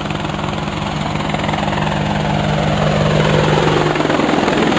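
In-sink garbage disposal running, a steady motor hum with a fast chopping rhythm, getting louder, with a pitch that slides down over the middle of it.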